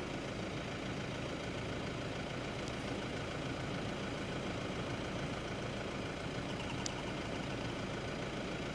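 Steady low background rumble with no clear source, unchanging throughout, with a couple of faint high ticks.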